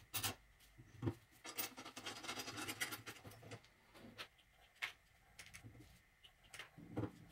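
Faint rubbing and a scatter of small clicks and taps as rubber feet are pushed and worked onto the ends of a welded steel tube frame by gloved hands.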